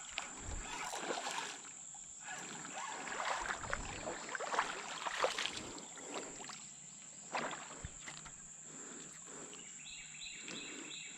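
Irregular knocks, scrapes and rustles of a bass being handled and unhooked aboard a kayak, over a steady high insect drone. Rapid cricket-like chirping comes in about ten seconds in.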